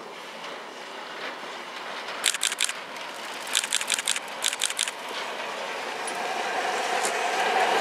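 Snowplow train of a Russell snowplow car and ED22 electric locomotive passing close by: groups of sharp wheel clacks over rail joints about two seconds in and again from about three and a half to five seconds, over a rush of noise that grows louder toward the end.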